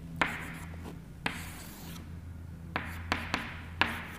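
Chalk on a blackboard as arrows are drawn: about six sharp taps as the chalk meets the board, each followed by a short scratchy stroke.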